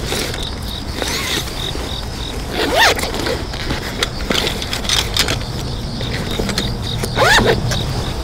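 Wind rumbling on the microphone, with scattered clicks of handling and two short rising squeaks, about three and about seven seconds in. A faint pulsing high tone runs underneath.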